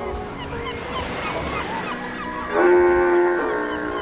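RC scale model ship's horn sounding one blast of about a second, a deep chord of several tones, a little past halfway. Short repeated chirps and a fainter steady tone run underneath.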